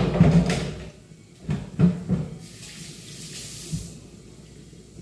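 Kitchen faucet running into a sink for about a second and a half, after a few knocks and clatter.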